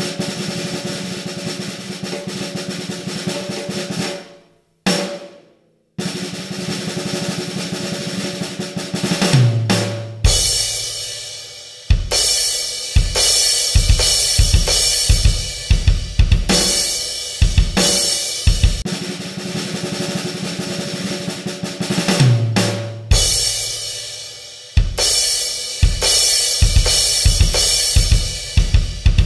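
Fast drum-kit playing: dense snare rolls alternating with separate kick and snare hits, over steady sustained tones. It cuts out completely for about a second and a half near five seconds in.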